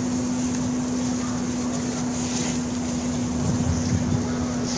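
A steady engine drone holding one pitch over a constant hiss. A low rumble of wind on the microphone swells about three and a half seconds in.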